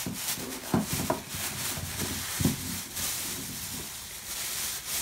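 Thin plastic shopping bag crinkling and rustling as it is handled and pulled open, with a few louder rustles about a second in and again about halfway through.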